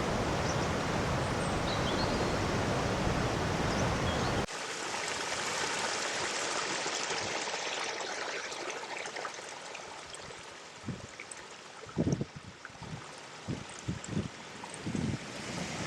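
Floodwater of an overflowing river rushing past. A dense, full rush cuts off abruptly about four and a half seconds in to a lighter, thinner flowing hiss. Scattered low gurgles and plops come through in the second half.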